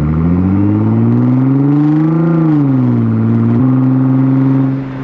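Nissan GT-R R35's twin-turbo VR38 V6, with a non-catted midpipe and intakes, pulling under load: the revs climb for about two seconds, ease off, then step up about three and a half seconds in and hold steady, as in a downshift.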